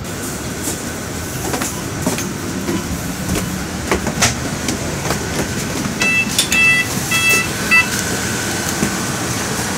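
Inside a double-decker city bus at a stop: steady cabin and engine noise with scattered knocks and footsteps as someone goes down the stairs. About six seconds in come about four short, high electronic beeps, typical of the bus door warning signal.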